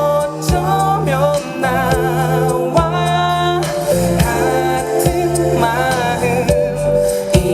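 Live band music with a singer's voice holding wavering notes over steady low notes and regular drum-like hits.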